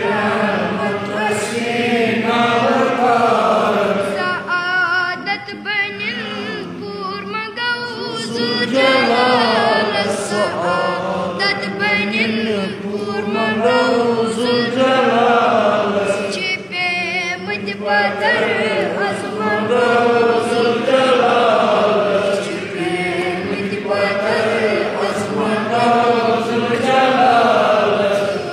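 Unaccompanied devotional singing of a hamd, a hymn praising God, in Kashmiri, in long melodic phrases with short pauses between them.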